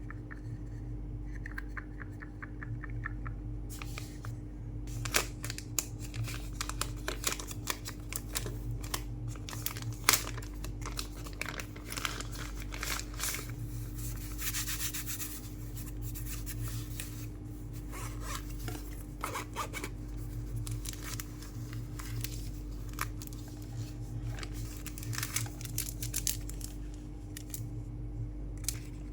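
Packaging being handled while a camera kit is unboxed: irregular scraping and crackling of cardboard and plastic, with scattered sharp clicks, the loudest about five and ten seconds in. A steady low hum runs underneath.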